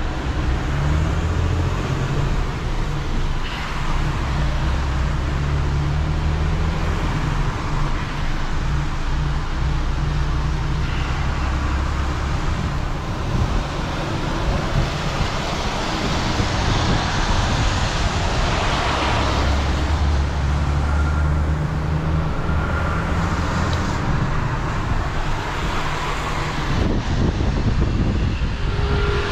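A heavy recovery truck's diesel engine running on the road while towing, with tyre and traffic noise. The low engine note swells and eases twice.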